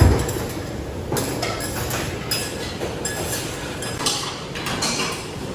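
Busy teppanyaki restaurant din: a steady noisy background with scattered metal clinks and knocks, opening with a loud thump.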